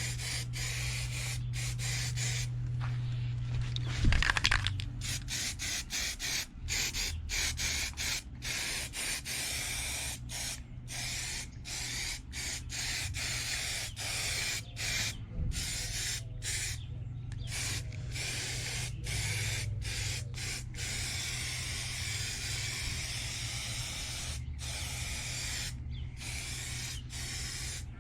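Spray paint hissing in short passes, stopping and starting many times, as primer goes onto a minibike frame. A steady low hum runs underneath, and there is a single knock about four seconds in.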